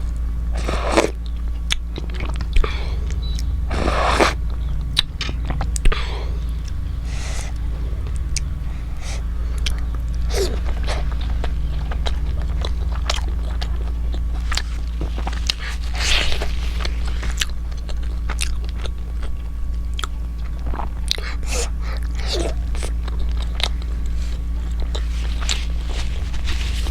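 Close-miked mouth sounds of a person chewing and biting momo dumplings: irregular wet clicks and smacks, a few louder ones, over a steady low hum.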